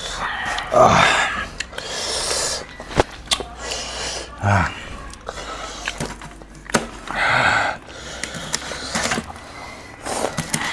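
A cleaver chopping boiled pork on a plastic cutting board, giving single sharp knocks at irregular intervals. Several loud breathy hisses and sniffs come in between.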